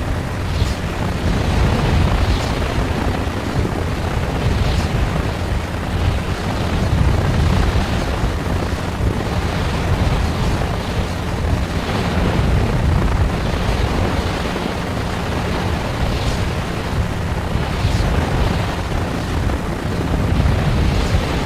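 Helicopter noise heard from on board: a steady, loud low rumble of rotor and engine with a rushing hiss over it.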